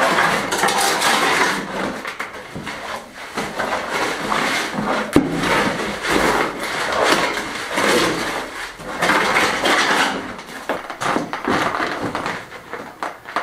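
A shovel scraping and turning a limecrete mix in a metal wheelbarrow, in repeated rough strokes about once every second or so, with a sharp knock of the blade against the barrow about five seconds in.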